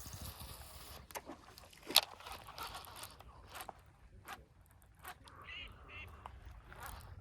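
Ducks quacking, two short calls near the end, among scattered sharp clicks, the loudest about two seconds in.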